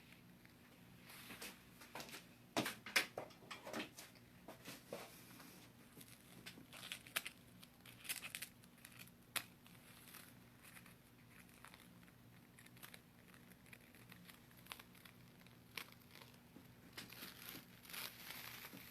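Faint, irregular crinkling and rustling handling noises in a small room, with a cluster of sharper crackles a few seconds in and more scattered ones later.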